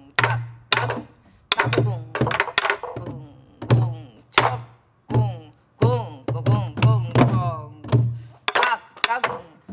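Several sori-buk, the barrel drums that accompany pansori, played together in a jangdan rhythm. Low booms come from the palm on the drumhead, and sharp clacks from wooden sticks striking the rim and shell, in an uneven pattern of strokes.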